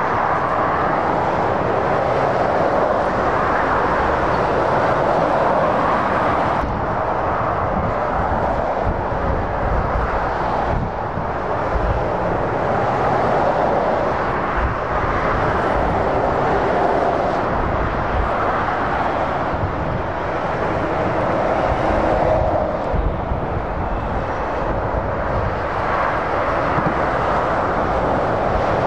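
Heavy motorway traffic: lorries and cars passing at speed in a steady rush of tyre and engine noise that swells and eases as vehicles go by.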